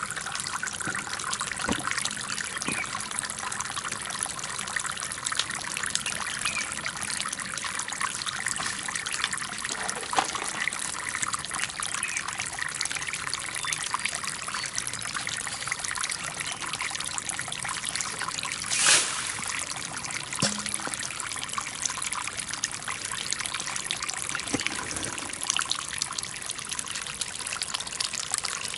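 Water trickling and splashing steadily from a fountain of stacked stoneware jars into a small pond. One brief knock sounds about two-thirds of the way through.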